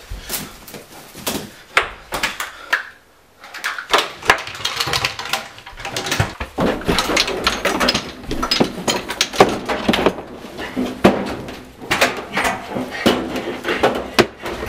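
Rummaging through household things: a busy run of knocks, bangs and clattering as objects are moved and pulled about. There is a short lull about three seconds in, then the clatter runs on almost without a break.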